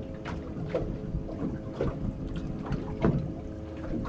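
Small waves slapping irregularly against a fibreglass boat hull, over a steady low hum.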